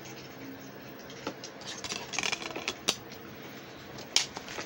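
A DVD disc being handled and pressed into a plastic DVD case: light rustling and small clicks, with a sharp plastic click about three seconds in and another just after four seconds.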